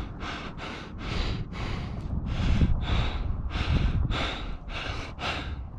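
A climber panting hard, quick heavy breaths about three a second, winded from the exertion of the climb. A low rumble sits under the breathing.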